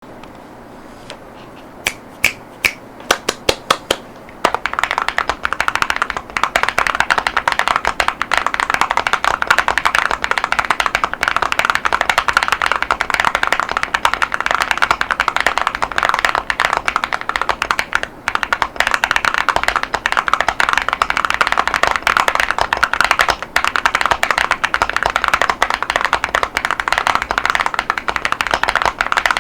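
Typing on a VTER (Epomaker) Galaxy 80 mechanical keyboard with Gateron Azure Dragon V3 tactile switches and ceramic Cherry-profile keycaps. About ten single keystrokes come first, then fast continuous typing from about four seconds in.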